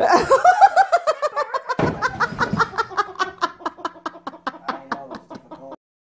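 A person laughing hard: a long run of rapid 'ha-ha' pulses that starts high and loud, then slowly falls in pitch and fades, with a dull thump about two seconds in. The laughter cuts off abruptly near the end.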